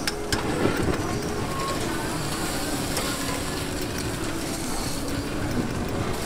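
Eel pieces grilling over a flaring fire on a street-stall grill: a steady rush of flame and sizzling fat. A couple of sharp metal clicks from the tongs come near the start.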